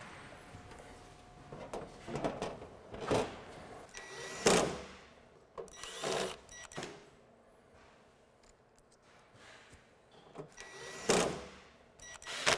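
Thin sheet-metal back panel of a wine cooler clattering and clunking as it is handled and fitted into place. There are several separate bangs, the loudest about four seconds in and near the end. A cordless drill whirs briefly with some of them, driving the panel screws.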